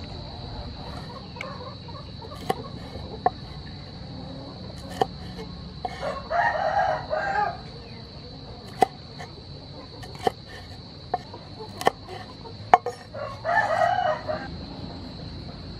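A knife chopping red chilies on a wooden cutting board, sharp single knocks every second or so. A rooster crows twice, about six seconds in and again near the end, each crow lasting about a second and a half.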